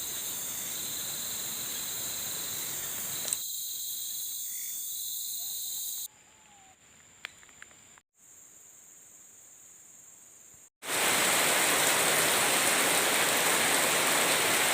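Night insects, cricket-like, trilling in a steady pulsing high chorus over a hiss. After a few abrupt cuts, a loud, even rushing noise like rain takes over for the last few seconds.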